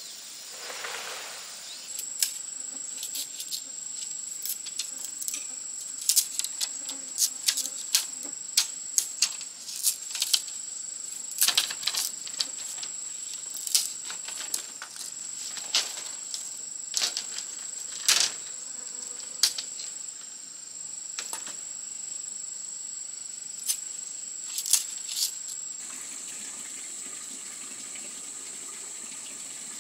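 Bamboo being split into thin strips with a knife: sharp, irregular cracks and clicks, over a steady high insect drone.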